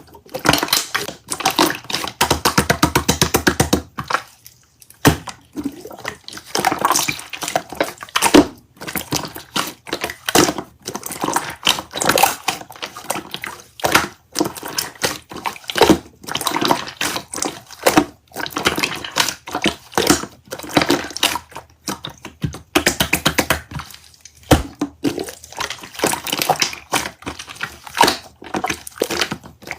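Slime being squished and poked, making dense runs of wet clicking and popping with short pauses between handfuls.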